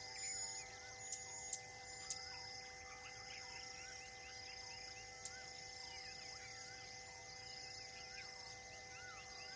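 Faint forest ambience of birds and insects: many short chirps, a short rising-and-falling whistle repeated about once a second, and a steady high drone, with a few sharp clicks in the first two seconds.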